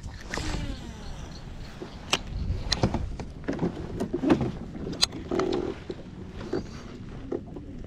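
Scattered sharp clicks and knocks of fishing gear and the catch being handled aboard a kayak, over a low rumble.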